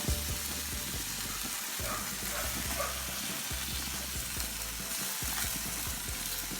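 Boneless ribs sizzling on a barbecue grill, a steady hiss of cooking meat.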